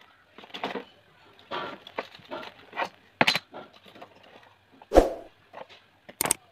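Art supplies being handled and set down on a desk: a few knocks and clicks as a box, a metal ruler and a pen are put in place, with light rustling between. The loudest thump comes about five seconds in, and a quick double click follows near the end.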